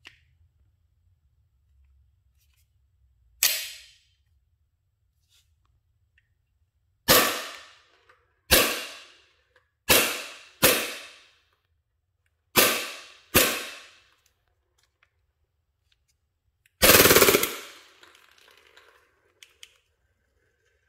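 WE Glock 26 Gen 4 gas blowback airsoft pistol firing: seven single shots, each a sharp crack, spaced one to three and a half seconds apart, then a short full-auto burst about 17 seconds in. A few faint clicks follow near the end.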